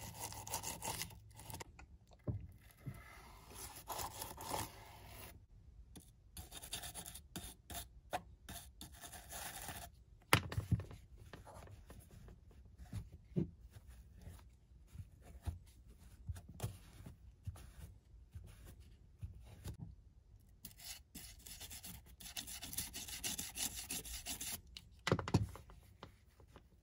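Toothbrush bristles scrubbing grime off the plastic case of a vintage pocket calculator, in runs of brushing that stop and start, with a few light knocks.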